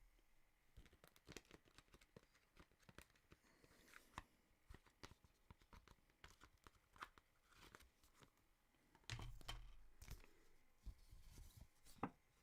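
Faint handling of a Blu-ray box set's paper and card contents: scattered light rustling, paper scrapes and small clicks, with a soft low bump about nine seconds in.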